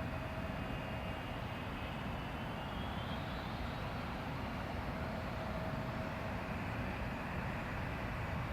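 Jet airliner engines running, a steady rumble with a faint high whine that rises in pitch about two to three seconds in.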